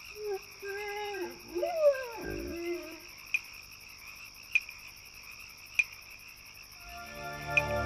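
Animated creature's vocal sound effects: warbling, pitched calls that slide up and down, ending in a downward swoop about two seconds in. A steady high-pitched background with a sharp tick about every second follows, and music comes in near the end.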